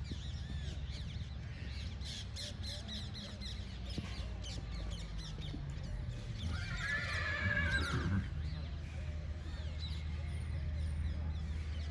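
Birds chirping and calling outdoors, with one louder wavering animal call about seven seconds in, over a steady low rumble.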